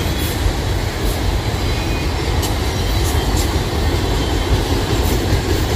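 Freight train of autorack cars rolling past on the track: a steady rumble of wheels on rail, with scattered sharp clicks.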